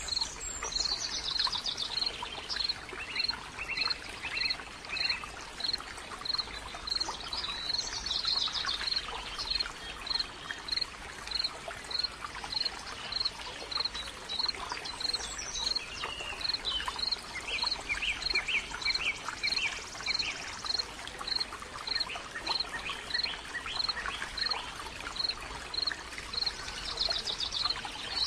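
Wild birds calling: a short high note repeated about twice a second throughout, with other birds' trills and bursts of chatter now and then. All of it sits over a steady background hiss.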